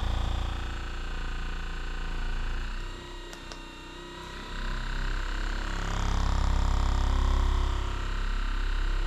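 RENPHO percussive massage gun running, its head hammering rapidly against the thigh with a steady motor hum and whine. The sound falls off about three seconds in and swells back up about five seconds in.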